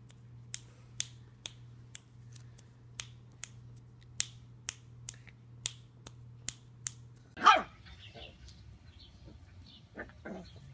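Sharp little clicks about two a second: a puppy's teeth snapping as it play-bites at an arm. About seven seconds in there is a single loud cry that falls in pitch.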